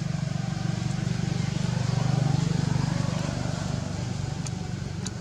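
A motor engine running steadily with a rapid low pulse, swelling a little about two seconds in and then easing off.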